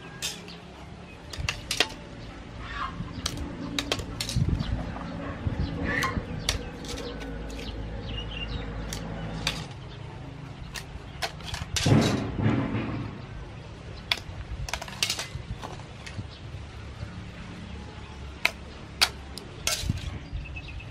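Scallop shells clicking and clattering against each other and the metal bowl as they are handled, in scattered sharp clicks, with one louder, longer sound about twelve seconds in.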